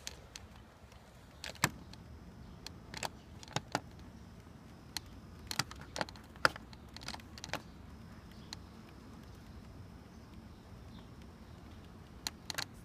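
Electric power-seat adjustment motor running with a faint steady hum while its side switch is held, with scattered sharp clicks from the switch and handling.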